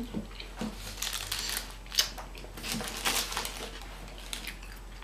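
Close-miked chewing of a mouthful of sub sandwich: soft wet mouth clicks and smacks, with a sharper click about two seconds in, thinning out toward the end.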